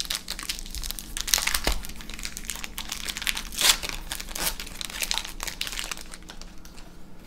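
A Magic: The Gathering booster pack's foil wrapper crinkling and crackling as it is torn open by hand. A sharper crackle comes about three and a half seconds in.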